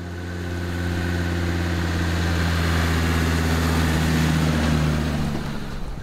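Land Rover Defender 130's Td5 five-cylinder turbodiesel driving past on a sealed road: a steady engine hum with tyre noise that swells over the first second, holds, then eases off near the end.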